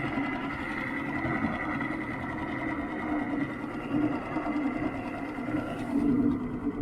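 Mercury 2.5 hp outboard motor running steadily at a constant speed, pushing the dinghy along.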